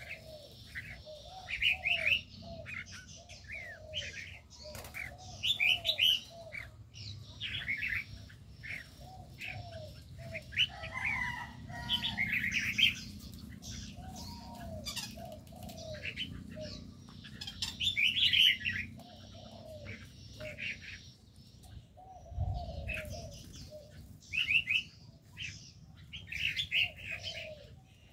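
Caged birds calling: red-whiskered bulbuls giving short chirpy calls over a run of repeated lower cooing notes from doves, with wings flapping now and then.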